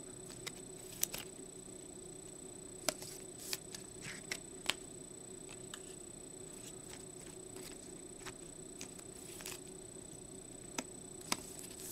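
Trading cards and clear plastic card holders handled on a table: about a dozen light clicks and taps, irregularly spaced, over a faint steady hum and high whine.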